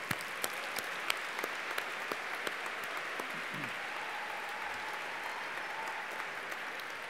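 Audience applauding steadily, with many separate sharp claps standing out from the even clatter.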